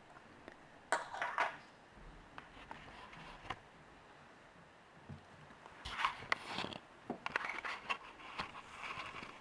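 Light clicks, taps and scrapes from handling a partly disassembled iPhone 3G and small tools on a table: a short cluster about a second in, then a run of quick clicks from about six seconds.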